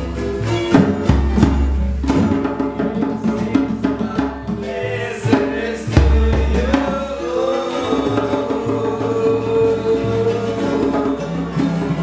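A band playing a song with singing over drums and deep bass, with a long held vocal note in the second half.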